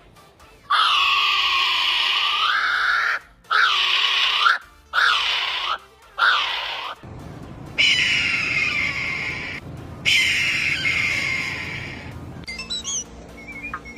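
A bird giving a series of long, harsh screeching calls, several in a row, each a second or two long.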